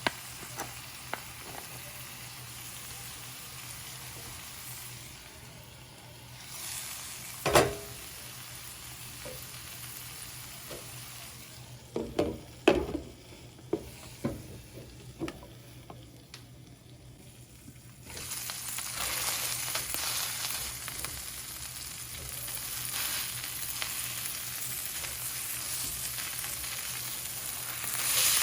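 Food frying and sizzling in a hot pan, with a utensil knocking and scraping against it now and then as it is stirred; the sizzle grows suddenly louder about two-thirds of the way through and stays loud.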